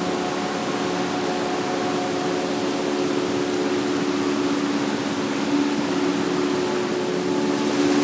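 Clear stream flowing: a steady rush of running water, with a faint steady hum of several low tones underneath.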